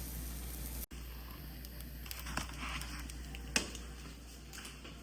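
Pork pieces sizzling and crackling in a hot frying pan, with a few sharp clicks, the loudest about three and a half seconds in.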